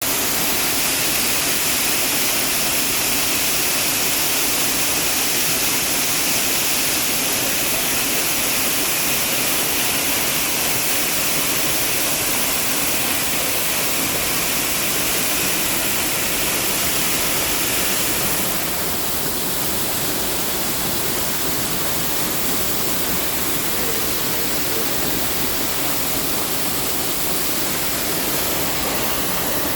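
Waterfall: a steady, even rush of falling water, hissy and brightest in the high range. About two-thirds of the way through, the top end eases slightly.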